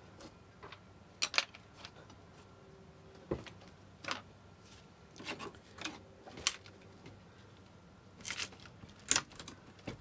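Hand tools clicking and knocking against wood and metal while a glued-down wooden trim block is worked loose. About nine sharp clicks and knocks come at uneven intervals, the loudest about a second in and near the end.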